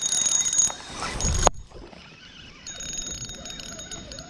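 Spinning reel working while a hooked bass is fought in: a high, steady whine with fast clicking. It cuts off suddenly about a second and a half in, and comes back fainter about a second later.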